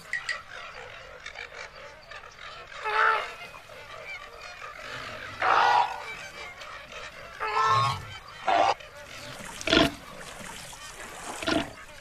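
Animated flamingos honking: about six separate short calls, a second or two apart, over a faint steady background.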